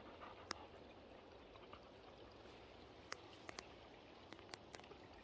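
Faint steady trickle of a shallow creek running over rocks, with a handful of sharp clicks scattered through it.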